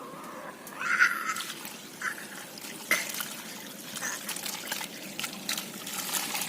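Water splashing and trickling, with scattered sharp splashes and a louder one about a second in.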